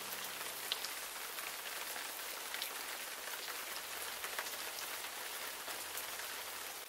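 Steady rain ambience: an even hiss with scattered faint drop ticks.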